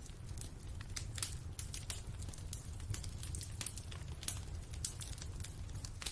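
Fireplace fire crackling: irregular sharp snaps and pops over a low, steady rumble.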